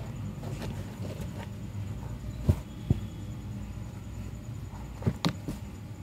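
Kittens moving about in a plastic tub: two pairs of sharp taps, about halfway and near the end, over a low steady rumble.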